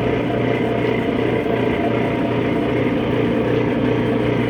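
Clausing 5914 variable-speed metal lathe running steadily under power, a continuous machine hum with no change in speed.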